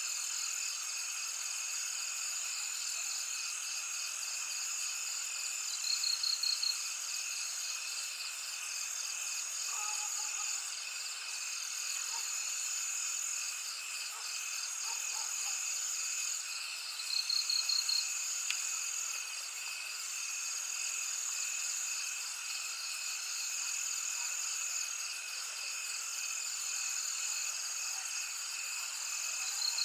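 A steady chorus of high, pulsing trills from calling animals. A short, louder pulsed call breaks through three times, about every eleven seconds.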